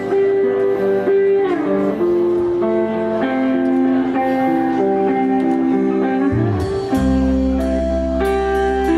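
Live band playing an instrumental guitar passage of held, changing notes. About six seconds in, a pitch slides down into a low held note.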